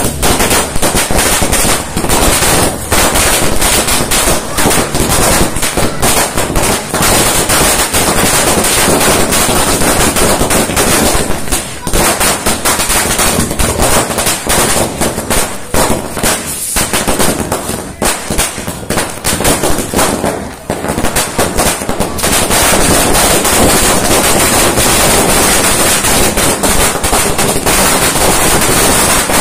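A string of firecrackers exploding in rapid, continuous bangs at close range. There are short lulls about twelve, seventeen and twenty-one seconds in, then an unbroken run of crackling to the end.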